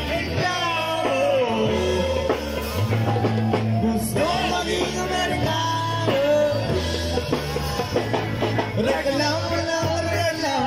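Live band playing rock music with a singer: a sung melody over a steady bass line and drums.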